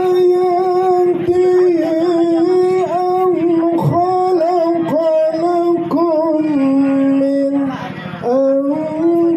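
A man chanting a Qur'an recitation (tilawah) into a microphone: long-held, ornamented melodic phrases in a high voice. The line steps down in pitch a little past the middle, then breaks for a breath and resumes higher near the end.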